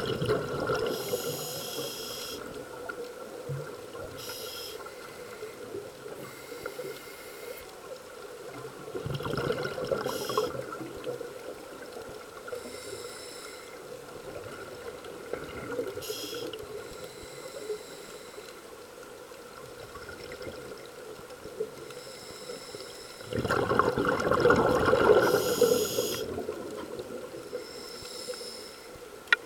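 Scuba diver breathing through a regulator underwater: short hissing inhalations and bursts of exhaled bubbles every several seconds, the longest and loudest bubble burst about three-quarters of the way through.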